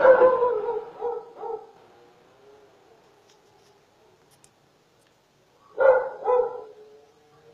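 A dog barking: one loud bark at the start followed by two fainter ones, then a pair of barks in quick succession about six seconds in.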